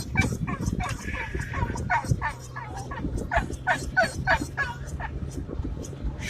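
Dog yelping in an unbroken string of short, high, falling cries, about three a second, in a frenzy of excitement, over the low steady hum of a car.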